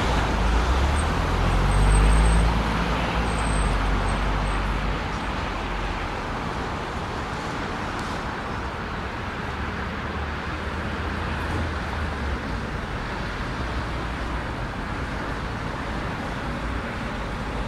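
Road traffic on a city street: a car passes close with a low engine rumble about two seconds in, fading to a steady background hum of traffic.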